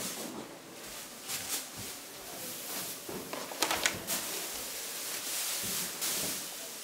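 Rustling and a few scattered light knocks and clicks in a room, with a cluster of sharper knocks about three and a half to four seconds in.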